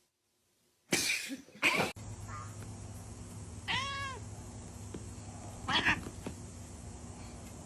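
Domestic cat meowing once about four seconds in: a single call that rises and then falls in pitch. A brief noisy burst comes near the start and another short one near six seconds.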